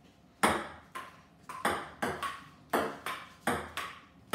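A table tennis rally: a ping-pong ball tapping back and forth off rubber paddles and bouncing on a wooden dining table, a sharp tap roughly every half second.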